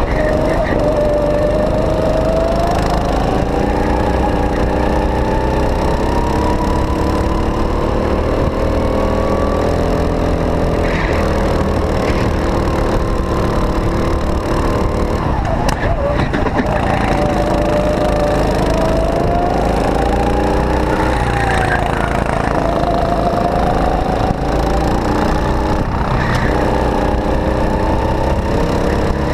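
Go-kart engine heard from on board at racing speed, its pitch climbing along the straights and falling away sharply as the kart slows for corners, several times over.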